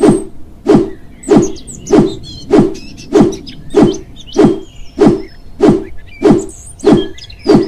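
A steady run of short, deep thumps, evenly spaced a little more than once every half second, each one dropping in pitch, with birds chirping faintly behind them.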